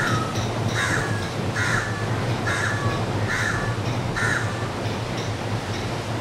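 A crow cawing six times in a steady series, a little under one caw a second, then stopping, over a steady rush of surf.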